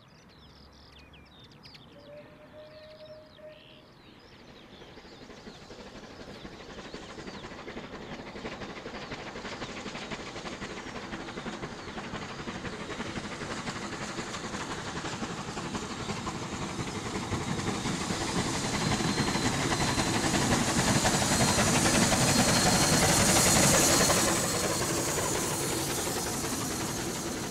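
Bulleid Light Pacific steam locomotive No. 34028 hauling a train of carriages, its exhaust and the rolling stock growing steadily louder as it approaches, loudest about three-quarters of the way through, then falling away as it passes. Birds chirp faintly at the start.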